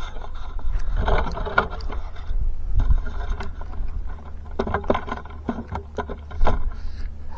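A small dump trailer being pulled out by hand: irregular clunks, knocks and scrapes of its frame and wheels, loudest about a second in, about three seconds in, and at about five and six and a half seconds in.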